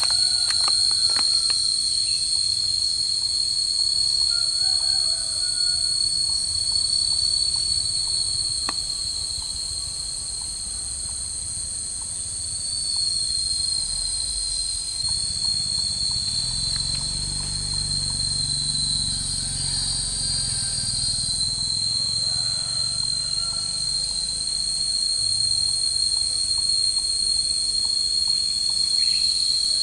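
Steady, high-pitched drone of a chorus of insects, unbroken throughout. Midway a low rumble swells and fades, and a few light clicks come in the first second or so.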